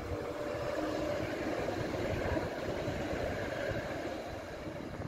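Škoda ForCity Smart Artic electric tram passing close by on ballasted track: wheels running on the rails under a steady electric motor hum. It grows louder over the first second and eases off near the end.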